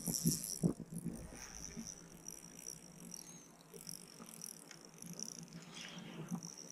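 Faint handling and clicking of a spinning rod and reel while a hooked walleye is played, with a few light knocks in the first second and again near the end. Under it runs a steady, high insect chirring.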